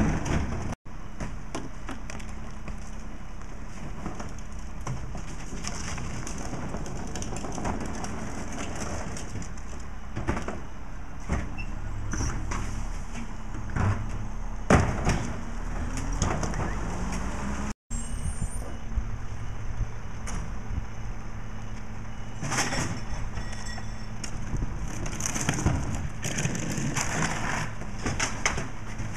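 Rear-loader garbage truck's diesel engine running steadily, rising once as the truck pulls ahead between stops, with clunks and clatter as wheeled trash carts are tipped by hand into the rear hopper.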